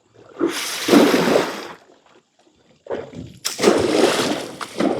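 Water splashing in two bursts: one about half a second in lasting over a second, and a longer one starting past three seconds.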